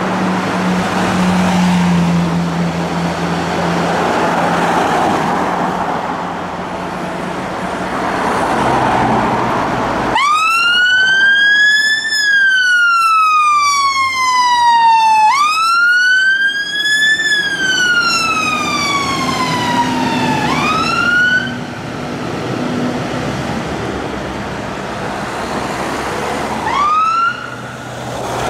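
Scania P280 fire engine's diesel engine running, then about ten seconds in its two-tone-free electronic siren starts a slow wail that rises and falls twice, ends in a short rising whoop, and gives two more short rising whoops near the end.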